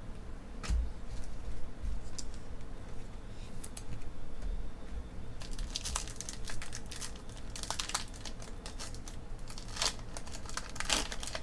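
A Panini Totally Certified Basketball card pack's shiny foil wrapper being torn open and crinkled by hand: a dense crackling that starts about halfway through, after a few light clicks.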